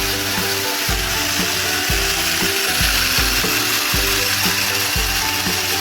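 Funskool remote-control toy car's small electric motor and plastic gears whirring steadily as the car runs after being switched on. Background music with a steady beat plays underneath.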